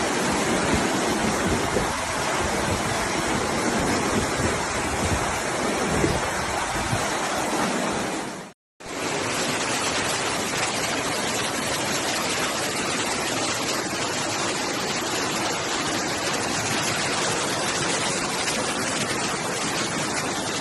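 Rushing floodwater: a steady roar of fast-flowing water that cuts out briefly about eight and a half seconds in, then resumes as a second clip.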